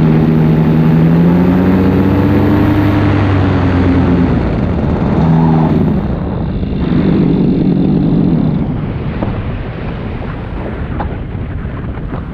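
Paramotor engine running at a steady drone, easing off about four seconds in, then given two short throttle bursts before being throttled back. For the last few seconds wind rushing over the microphone is the main sound as the wing glides in to land.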